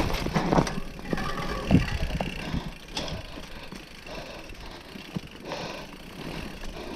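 Scott Gambler downhill mountain bike rolling fast down a dirt trail: a steady rumble of tyres on dirt, with rattles and several sharp knocks from the bike over bumps in the first three seconds, the loudest a little under two seconds in.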